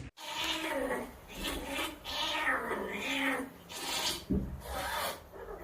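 Cat meowing again and again in long, drawn-out calls that rise and fall in pitch.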